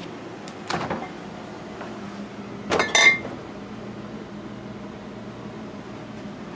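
Refrigerator door opening with a click near the start, then glass bottles clinking together sharply about three seconds in, over a steady low hum.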